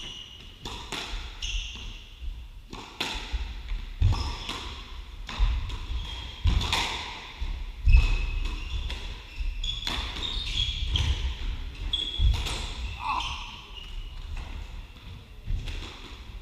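Squash rally: irregular sharp cracks of racket on ball and the ball hitting the court walls, with shoes squeaking in short high squeals on the wooden floor.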